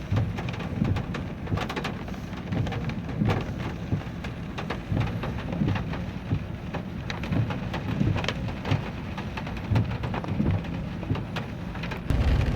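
Heavy rain striking a pickup truck, a dense irregular patter of separate drops over a steady low rumble that swells near the end.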